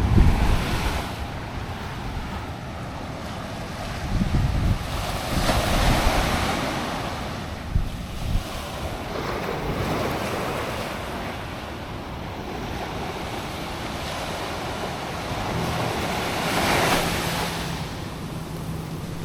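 Ocean surf: waves breaking and washing up the beach, swelling about five seconds in and again near the end, with wind buffeting the microphone.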